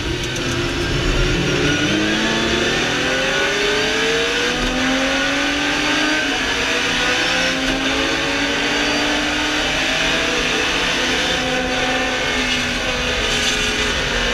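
Ferrari 250 LM's 3.3-litre V12 at racing speed, heard from the cockpit. The engine note climbs and drops again and again as the car accelerates and shifts gear.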